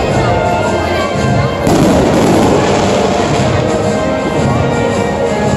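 Aerial fireworks bursting, with crackling and booms and a louder burst about a second and a half in, over music playing throughout.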